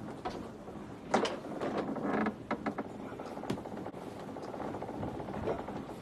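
Scattered creaks and clicks, with a louder knock about a second in and another past the middle.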